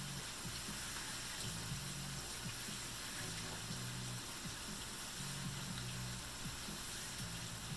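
Kitchen tap running into the sink as hands are washed, over the steady sizzle of bacon frying in a pan. Low background music comes and goes underneath.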